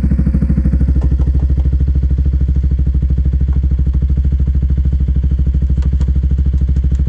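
Bajaj Pulsar NS200's single-cylinder engine idling steadily through an open SC-style muffler, giving a fast, even exhaust pulse.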